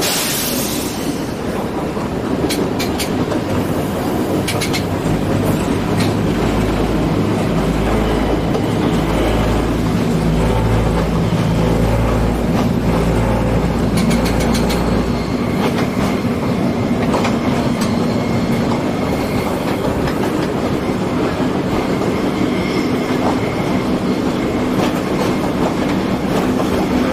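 Diesel railcar running along a single-track branch line, heard from the cab: steady engine and running noise with wheels clacking over the rail joints. A low pulsing throb runs for several seconds in the middle.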